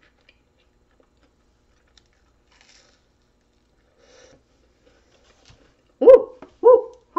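A person chewing a bite of hot, flaky pastry with their mouth full, only faint small clicks. Near the end come two loud, short, pitched hums or grunts made with the mouth full.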